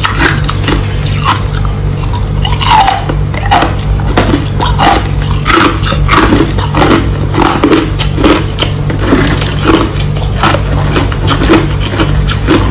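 Crushed ice being bitten and chewed close to the microphone: a continuous run of irregular crunches, several a second, over a steady low hum.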